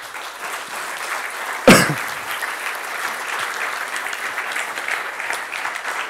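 Audience applauding steadily, with one loud brief thump a little under two seconds in.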